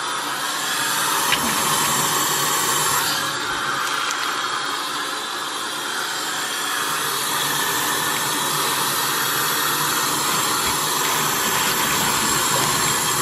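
Kitchen tap water running steadily into a stainless steel sink and splashing over a bunch of puha greens being rinsed by hand.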